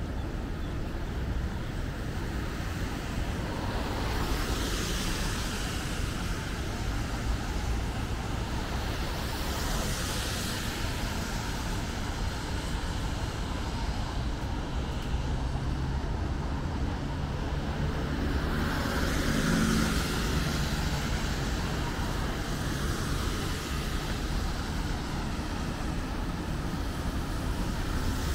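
Road traffic passing on a wet road: a steady rumble, with the hiss of tyres swelling and fading as vehicles go by, three times, the last one with some engine tone.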